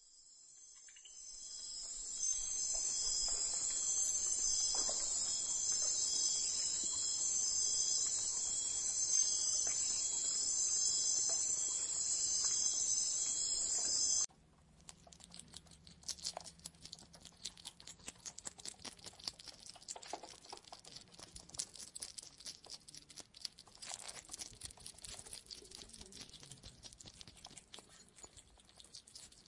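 A steady, dense high chirring of insects, like crickets, that stops abruptly about halfway through. After it come faint, irregular crackling and ticking sounds.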